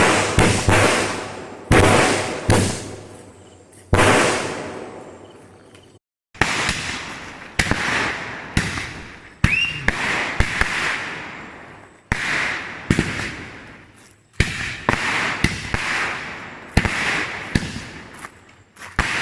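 Firecrackers going off in a rapid series of sharp bangs, roughly one a second, each followed by a fading tail, with a brief break about six seconds in.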